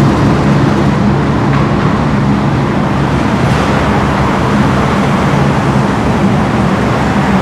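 Road traffic: a steady low engine hum, with a box truck driving past about halfway through.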